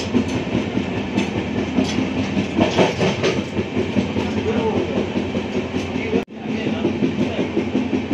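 Express train running at speed, heard from inside its glass-walled Vistadome coach: a steady rumble and rattle with wheels clicking over the rails. The sound drops out abruptly for a split second about six seconds in.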